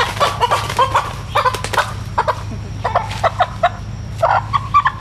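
Chickens squawking and clucking in a rapid series of short, loud calls as they are caught by hand from their roost in the bushes.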